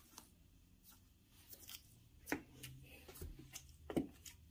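Soft footsteps in flat slide sandals, stepping from a rug onto a wooden floor, with two clearer taps about two and four seconds in and faint rustling between.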